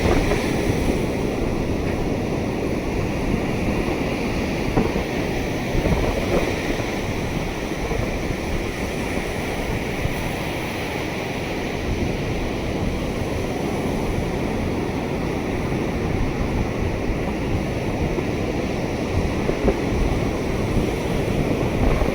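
Sea surf washing onto a beach, a continuous rush of noise that swells and eases slightly, with wind buffeting the microphone.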